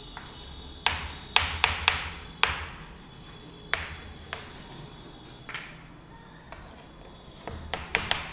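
Chalk tapping and scratching on a chalkboard as a heading is written by hand: a string of sharp, irregular taps, with a quick cluster near the end.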